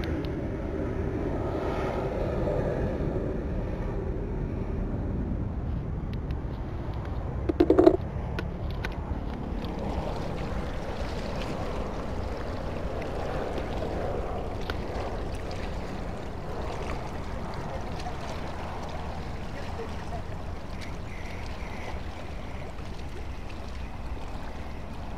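Steady low outdoor rumble of wind and harbour water, with one short loud sound about eight seconds in.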